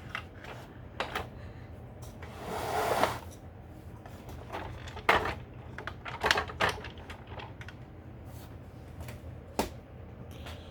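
Hard plastic toy handled and set down: scattered clicks and knocks, with a scraping slide about two seconds in.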